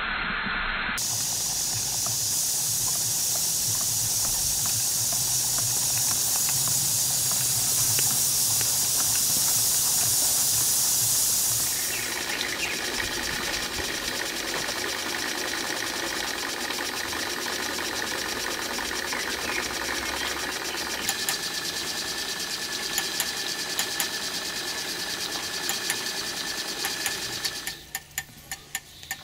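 Model twin-cylinder marine steam engines running on live steam, with a steady steam hiss that is loudest for the first ten seconds or so. About twelve seconds in, a cut to another plant brings a lighter hiss, a faint steady tone and sharp clicks that come more and more often in the second half.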